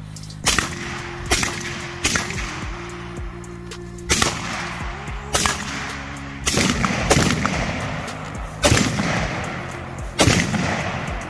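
Short-barrelled 11.5-inch AR-15 carbine firing about nine single shots at an irregular pace, a second or two apart, each with a short echo. Background music with steady low notes runs underneath.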